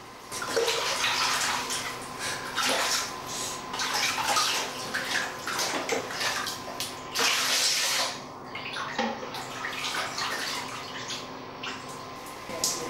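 Water splashing in a small basin as a toddler is bathed, with water poured from a plastic jug over the child's head and hands rubbing its wet hair. The longest, loudest splash comes about seven seconds in.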